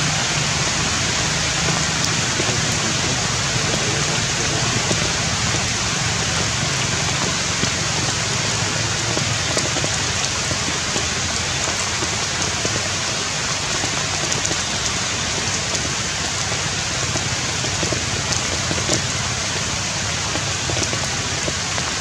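Steady rain falling on tree foliage: an even hiss with scattered single drops ticking through it.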